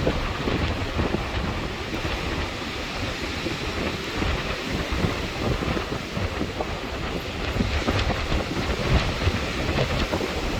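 Strong storm wind buffeting the microphone with a steady low rumble, over the noise of storm surf breaking on the shore.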